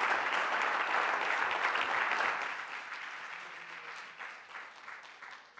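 Audience applauding, strong for the first two seconds and then dying away gradually.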